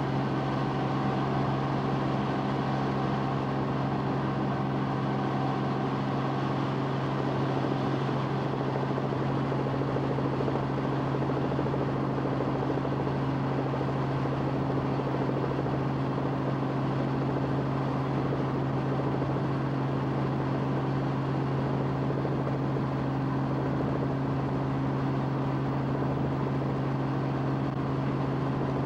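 Steady, unbroken engine drone of the aircraft carrying the camera for aerial filming, heard from on board.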